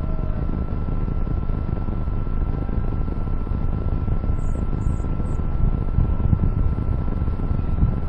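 Wind rumbling on the microphone of a crashed quadcopter's camera lying on a shingle roof, with a thin steady whine over it.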